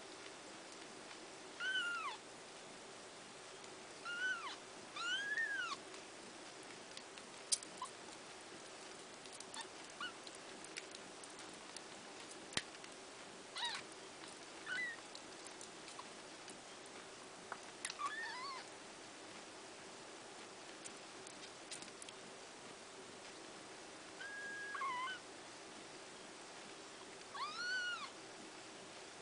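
Newborn kittens mewing: about nine short, high-pitched calls, each rising then falling in pitch, scattered among faint ticks and rustles as they nurse and jostle at the mother cat's teats. The owner says the kittens were not getting enough milk and needed their diet supplemented.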